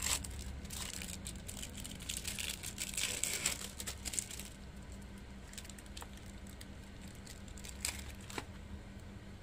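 Thin plastic film crinkling and tearing as a processed cheese slice is unwrapped, a dense crackle for about four seconds, then a few single crinkles near the end.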